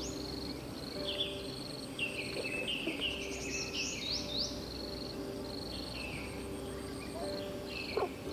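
Crickets chirping in a steady pulsed trill while birds call with quick falling whistled notes, busiest around three to four seconds in. A faint low steady drone runs underneath, and a single small click comes near the end.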